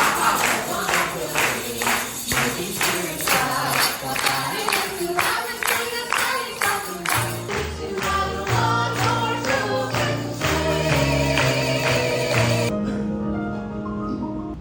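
Stage-show music with singing over a steady percussive beat, thinning to softer held notes near the end.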